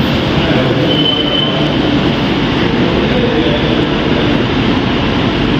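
Steady, loud rushing background noise in a gym room, even throughout with no rhythm or distinct events.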